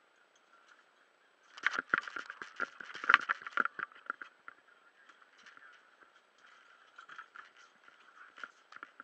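Underwater clicking and crackling picked up through a scuba diver's camera housing: a dense burst of sharp clicks and knocks lasting about two seconds, starting about one and a half seconds in, then scattered faint ticks.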